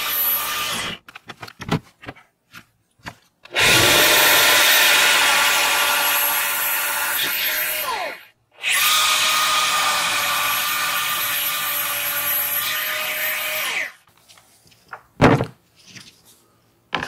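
Jigsaw cutting plywood: a steady motor whine with the rasp of the blade, in two runs of about five seconds each with a brief stop between. A few knocks near the end as the cut wood is handled.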